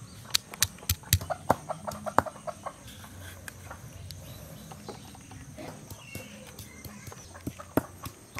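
Sharp knocks of a stone roller tapping garlic cloves against a flat stone grinding slab, about three a second, stopping about two seconds in. After that only a few scattered, softer clicks.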